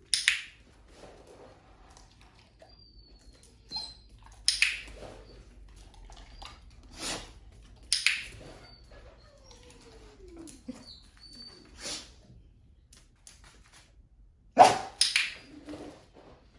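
A dog barking in short, sharp barks several seconds apart, with a quick double bark near the end.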